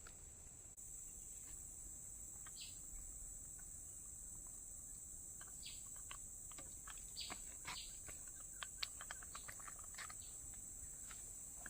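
Faint, steady, high-pitched insect drone, with scattered short chirps and clicks from about two and a half seconds in.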